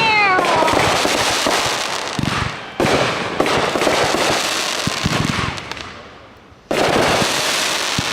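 Fireworks going off with dense crackling: three sudden loud volleys three to four seconds apart, each followed by a long crackle that fades.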